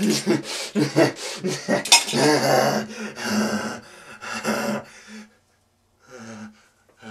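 A man's voice in quick sharp grunts and breaths for the first couple of seconds, then a drawn-out open-mouthed cry that fades out about five seconds in.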